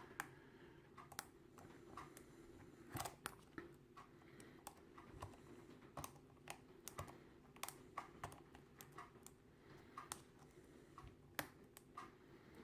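Faint, irregular clicks and scrapes of a hook pick and tension wrench working the pins of a five-pin brass padlock, over a low steady hum. The pins are very stiff, not precision pins.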